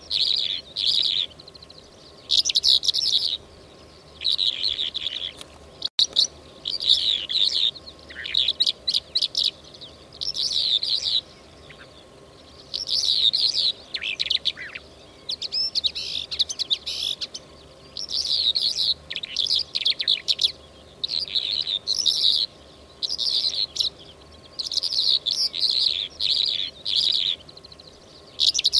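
Lark song: rapid, high chirping and trilling phrases, each about a second long, repeated every second or two with short pauses between.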